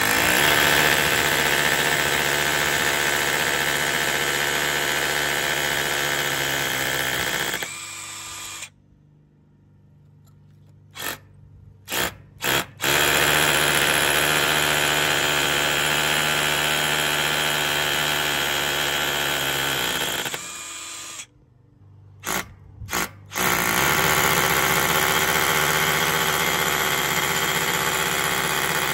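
Ryobi 18V cordless SDS rotary hammer drill in hammer mode boring into brick. There are three long runs of drilling. Between them, twice, it stops for a few seconds, broken only by two or three very short bursts.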